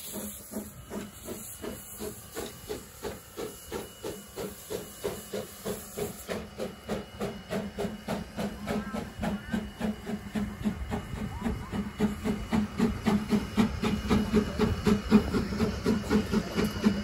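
Two-foot-gauge steam locomotives working as a doubleheader, their exhaust chuffing in an even rhythm of about four beats a second over a hiss of escaping steam. The chuffing grows steadily louder.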